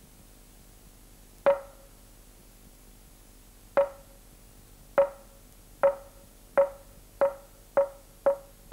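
Wooden han board of a Zen dojo struck with a mallet: single sharp, ringing wooden knocks that come closer and closer together, eight of them, the accelerating series that calls practitioners to zazen.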